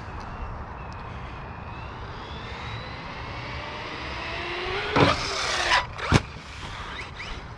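Losi Lasernut RC truck's electric motor whining and rising in pitch as it accelerates, then a loud burst of tyre and chassis noise and a sharp knock about six seconds in.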